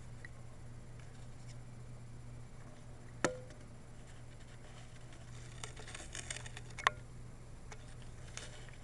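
Low steady hum with a few isolated sharp clicks, one about three seconds in and another about seven seconds in, and a short run of faint ticks just before the second; no siren sounding.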